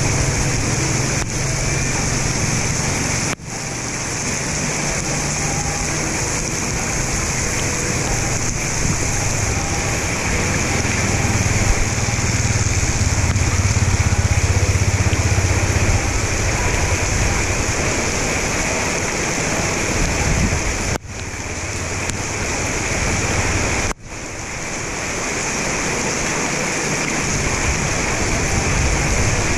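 Floodwater running steadily into a partly clogged roadside culvert inlet, with a low rumble underneath. The sound drops out briefly three times, a little after 3 seconds and around 21 and 24 seconds.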